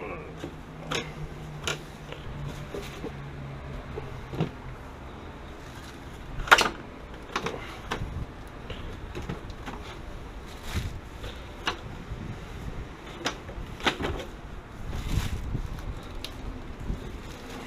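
Irregular knocks and clunks from hands and tools working on the old water heater's fittings, the loudest a sharp knock about six and a half seconds in. A low steady hum fades out in the first few seconds.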